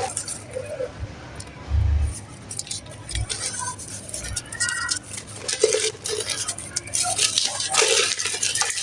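Dry clay or mud crumbling and crunching, an irregular run of gritty crackles and clinks, with a couple of dull low bumps about two and three seconds in.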